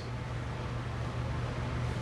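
Room tone: a steady low hum with a faint even hiss, and no other event.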